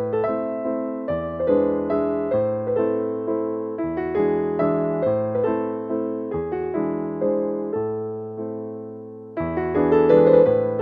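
Background music: a piano playing soft chords in a steady rhythm, the harmony changing every couple of seconds.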